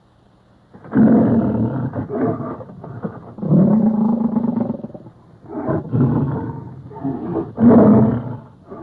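Stock lion-type roar and growl sound effects in several loud bursts: one about a second in, a long held roar in the middle, and shorter roars near the end.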